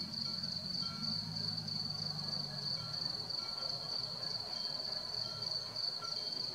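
Crickets trilling steadily at a high pitch, with a low rumble underneath that fades out about halfway through.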